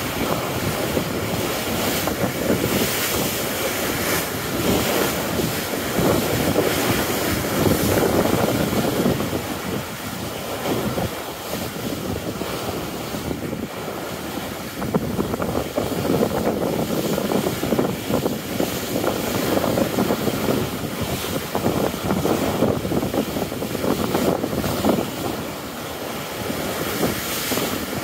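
Wind buffeting the microphone and water rushing past the hull of a J/99 yacht sailing fast downwind, a steady rush that swells and eases every few seconds as the boat surges through the waves.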